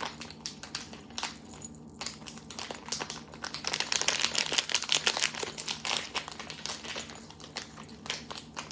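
Plastic icing pouch crinkling and crackling irregularly as it is squeezed and kneaded by hand to soften the icing.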